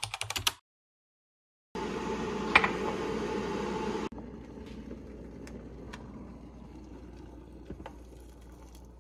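Typewriter-style key clicks for about half a second. After a short silence comes an electric kettle heating water to the boil, a steady rushing noise with one sharp click in it. About two seconds later it drops suddenly to a quieter steady hiss with a few light ticks.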